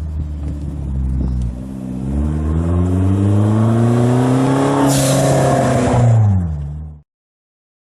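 Hyundai Genesis Coupe 2.0T's turbocharged four-cylinder engine revving: the pitch dips about a second and a half in, then climbs steadily. A loud hiss comes in as the revs peak, then the revs fall, and the sound cuts off abruptly about seven seconds in.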